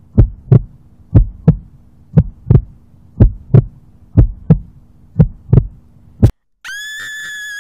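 Heartbeat sound effect: paired lub-dub thumps about once a second over a faint steady hum, ending on a single thump and a sudden cut. Shortly after, a steady high electronic beep begins and holds.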